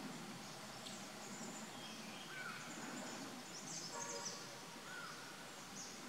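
Forest ambience with scattered short, high bird chirps and whistled notes from small birds, and a brief lower, buzzier call about four seconds in.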